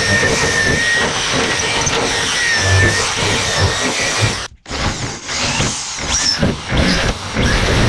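Corded rotary tool spinning a small wire wheel against rusty sheet steel, scrubbing off rust, with a high motor whine that wavers under load. It cuts off abruptly a little past halfway, and an electric drill then bores into the rusty steel top, running unevenly.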